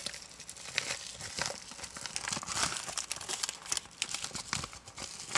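Clear plastic cellophane packaging crinkling and rustling in irregular crackles as it is handled and pulled out of a mailer package.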